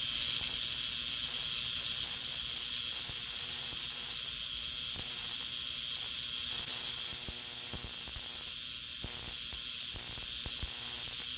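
Handheld Tesla coil running: a steady high buzzing hiss with a dense, rapid crackle from its spark discharge.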